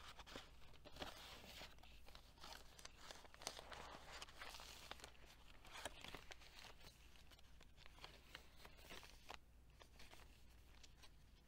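Faint rustling and crinkling of paper pages and tags of a handmade junk journal as they are turned and flipped by hand, many small paper clicks and rustles.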